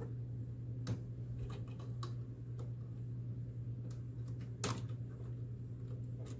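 Plastic clicks and snaps of refillable ink cartridges being lifted out of and pushed back into the carriage of an Epson WorkForce WF-7720 printer, reseating a magenta cartridge the printer cannot recognize. Scattered clicks, the loudest a little past the middle, over a steady low hum.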